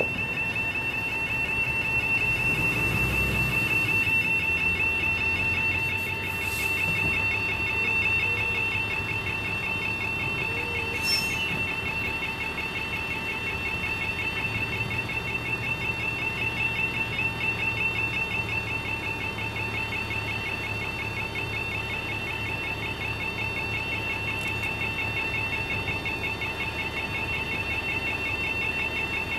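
Level-crossing audible warning alarm sounding without a break, a high, rapidly warbling tone, as the crossing's red lights flash for an approaching train. A heavy vehicle rumbles over the crossing in the first few seconds.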